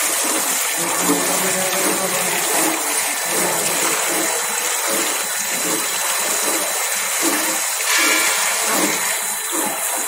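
Steady rush and splash of water jets spraying inside a rotary empty-bottle washing machine, rinsing plastic bottles mounted upside down on its nozzles, with a faint steady high whine underneath.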